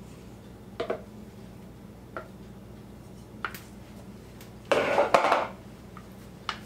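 A wooden spatula knocking and scraping against a plastic mixing bowl and a small metal loaf pan as raw meatloaf mixture is scraped out and patted into the pan. It makes a few light taps, then a louder clatter about five seconds in, over a low steady hum.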